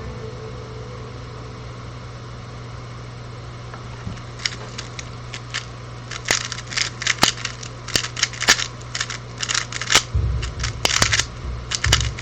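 Rubik's Cube being turned fast during a speedsolve: a rapid run of plastic clicks and clacks that begins about four seconds in and grows denser, over a steady low hum.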